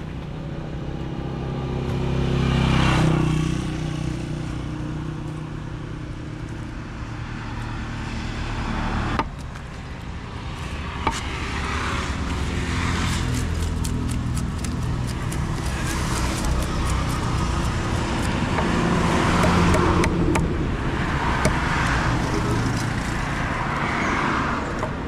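Road traffic passing close by: vehicles swell and fade over a steady rumble, with one loud pass about three seconds in. Through the second half, sharp taps and scrapes of a knife working fish on a wooden chopping block.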